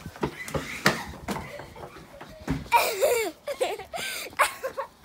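Quick running footsteps, with a child laughing and squealing in short outbursts, the loudest about three seconds in and another near the end.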